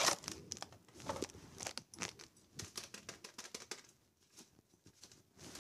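Plastic spice packet of ground black pepper crinkling in the hand as it is handled and tipped over the bowl, with irregular crackles through the first three seconds or so that thin out toward the end.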